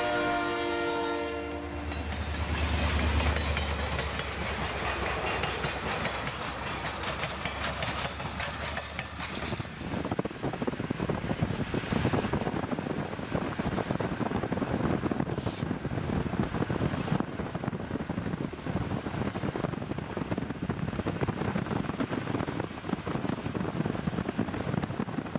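Diesel locomotive horn cutting off about a second in, then the locomotives rumbling past. From about ten seconds in, passenger cars roll by with a steady rapid clatter of wheels over the rails.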